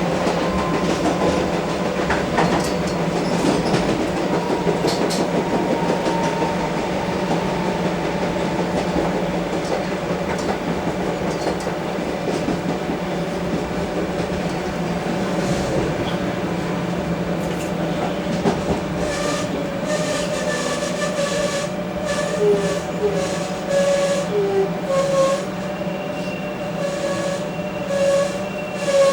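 Comeng electric multiple unit running on the line, with a steady motor hum and a held tone. In the second half come repeated clicks and short changing tones as the train works its way toward the next station.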